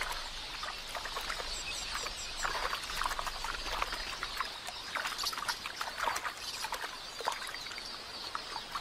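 Irregular splashing and slapping of shallow water as helmeted terrapins thrash and tear at a captured quelea, over a steady high twittering of small birds.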